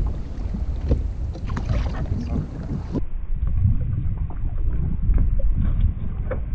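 Wind rumbling on an action camera's microphone over sea-kayak sounds: water slapping the plastic hull and small knocks of gear.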